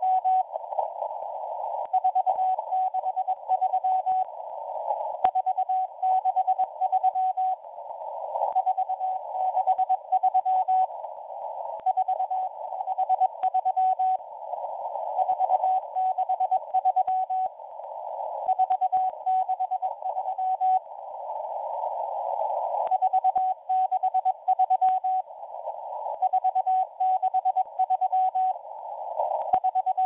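Morse code numbers from the M01 number station received on shortwave: a single steady-pitched tone keyed in dots and dashes, sent in groups about two seconds long with a second or so of hiss between them. The hiss sits in a narrow band around the tone, as through a CW filter, with faint crackles of static.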